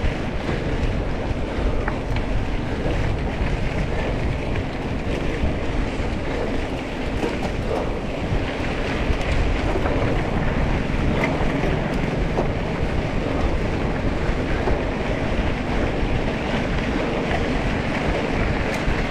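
Off-road vehicle running along a rough dirt trail: a steady rush of wind buffeting the microphone over the engine noise, with small rattles and knocks from the bumpy ground.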